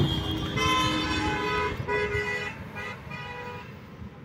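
A vehicle horn honks about four times, the first blast the longest and the rest shorter.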